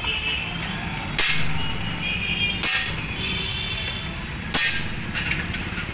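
Three sharp metal clinks, about one and a half to two seconds apart, from a 10 mm T-handle socket wrench as it is turned to tighten a headlight-visor mounting bolt on a motorcycle.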